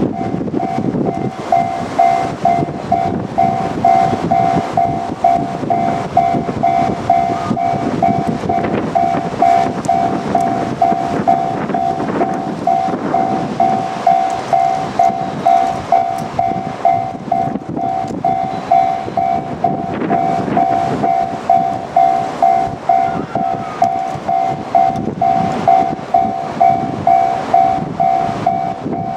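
Japanese level-crossing warning bell ringing: an electronic two-tone beep repeating steadily, over the continuous rumble of a JR Kyushu 787-series train running past on the rails.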